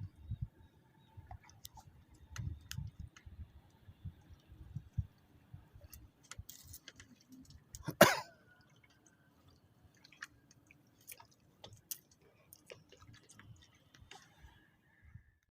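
Scattered faint knocks and clicks, with one sharp, loud knock about eight seconds in.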